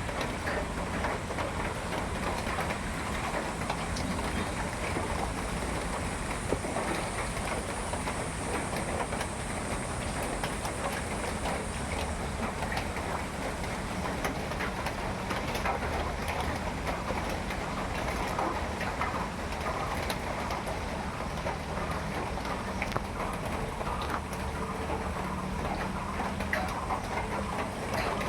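Steady rain pattering on a surface, a dense spatter of drops.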